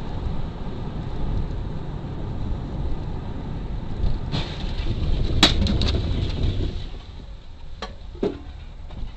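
Steady low road and engine rumble of a moving car, picked up by a dashcam inside the cabin, with a sharp knock about five seconds in and two lighter clicks near the end.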